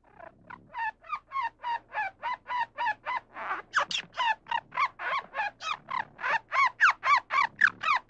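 Squirrel calling in a rapid run of short chirping calls, about four a second, each rising and falling in pitch, growing louder in the second half.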